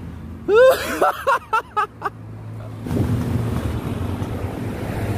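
A short voice call near the start, then a motor scooter's engine running steadily as it comes along the road, with wind rumbling on the microphone.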